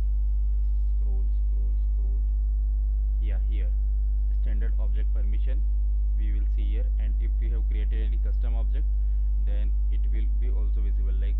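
Steady electrical mains hum, a low buzz with a ladder of overtones, on the recording throughout. A faint, indistinct voice can be heard underneath it.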